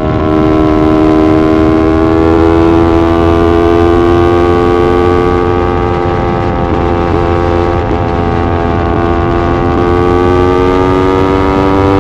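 Small sport motorcycle's parallel-twin engine pulling steadily under load in one gear, its pitch climbing slowly as the revs build, with a low rumble of wind and road noise underneath.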